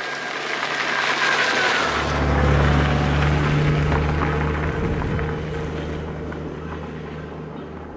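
Honda GL1800 Gold Wing's flat-six engine running with its tyres on gravel as the motorcycle rides past, growing louder to a peak about two and a half seconds in, then fading as it rides away.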